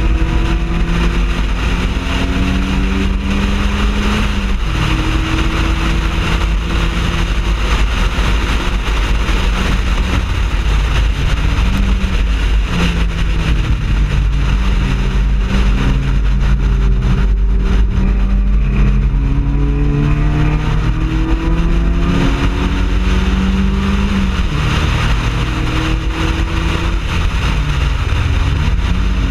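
Mazda Miata race car's four-cylinder engine running hard on track. The pitch climbs steadily under acceleration and drops several times at gear changes and braking.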